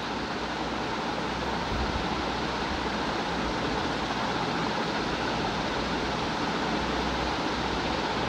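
A steady, even rushing background noise with no distinct events.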